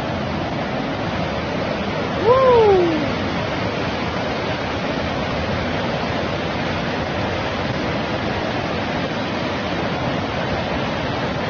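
Rushing floodwater making a steady, even roar. About two seconds in, a single short cry rises then falls in pitch over it.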